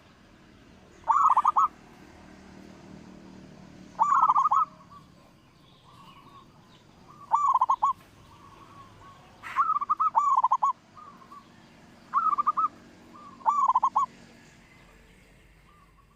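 Zebra dove (local perkutut) cooing: six short rolling phrases of quick notes, repeated every two to three seconds, with fainter notes between them. A single sharp click comes about halfway through.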